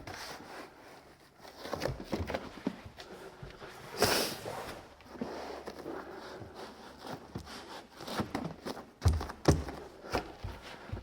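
EPDM rubber roofing membrane being pressed and rolled up a glued wall by hand: scattered rustles, taps and soft knocks, with a short loud rustle about four seconds in and a few heavier thumps near the end.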